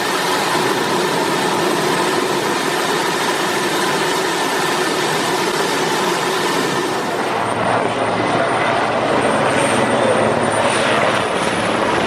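Oryx helicopter's twin Turbomeca Makila IA1 turboshaft engines and rotor running steadily, with a dense rush and several steady tones. About two-thirds of the way through, a high turbine whine comes in and rises slightly.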